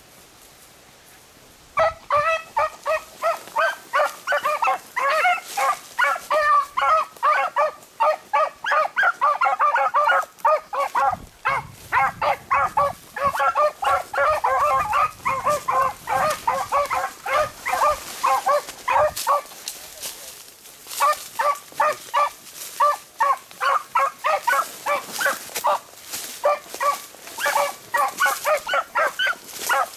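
Beagles baying in rapid, repeated calls, starting about two seconds in, easing briefly about two-thirds of the way through, then picking up again: hounds giving tongue as they run a rabbit's track.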